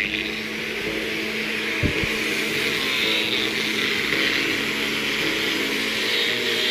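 Angle grinder with a sanding disc running steadily while sanding coconut wood, a whine over a hissing grind. A dull knock about two seconds in.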